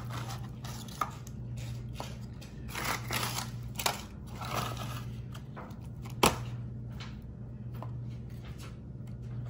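Rustling of the paper sleeve in a box of Chessmen butter cookies as crisp cookies are pulled out and laid on soft custard in a dish, with scattered light clicks, the sharpest about six seconds in. A low steady hum runs underneath.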